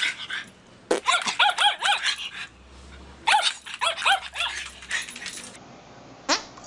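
Small dog yipping in two quick runs of short, high yelps, one about a second in and another a little after three seconds in.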